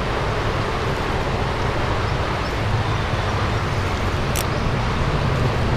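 Steady rushing of a high, rain-swollen creek, with a single faint click about four seconds in.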